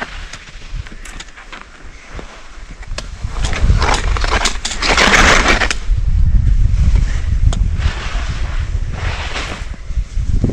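Skis scraping and hissing over snow on a descent, with a long, loud scrape about halfway through and a few sharp clicks early on. Wind rumbles on the microphone underneath.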